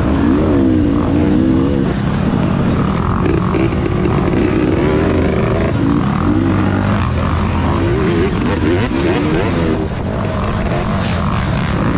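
Off-road dirt bike engine revving up and down over and over, its pitch rising and falling every second or so as the throttle is worked on a rough trail.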